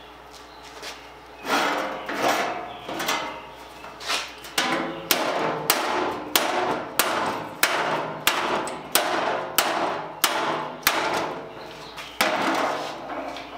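A hand hammer striking a freshly welded steel seam over and over, sharp metallic blows that settle into a steady rhythm of about one and a half a second, knocking along the weld on the badly pitted sheet steel cut from an old fuel oil tank.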